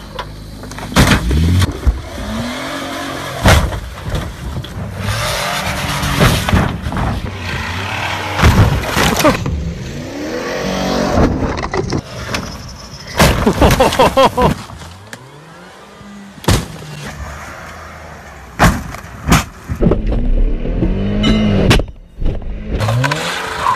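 Car engines revving hard in rising and falling sweeps, broken again and again by loud crashes and thuds as cars land from jumps and crash.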